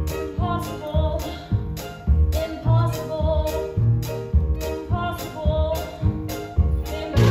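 A woman singing a musical-theatre song over an accompaniment with a steady beat.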